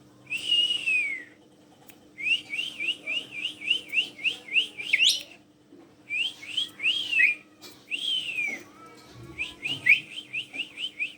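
Asian pied starling (jalak suren) whistling: two long falling whistles, and runs of quick, rising whistled notes, about three to four a second, broken by short pauses.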